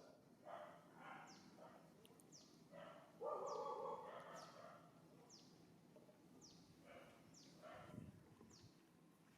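Faint short harsh coughs from an unwell mother monkey, the loudest about three seconds in. Behind them a bird repeats a high, downward-sliding call about once a second.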